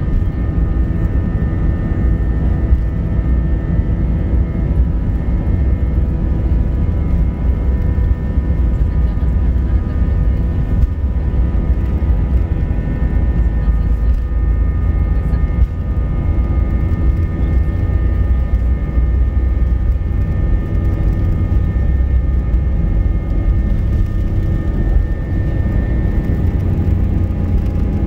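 Airbus A320's jet engines at takeoff thrust during the takeoff roll, heard inside the cabin over the wing: a loud, steady rumble with several steady whining tones above it.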